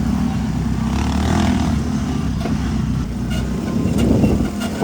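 Off-road buggy's engine running while the buggy drives, a steady low rumble.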